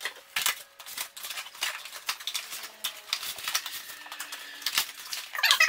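Foam packing tubes and plastic wrapping being pulled and worked off a bicycle frame: irregular rustling, crinkling and scraping with many sharp crackles and clicks.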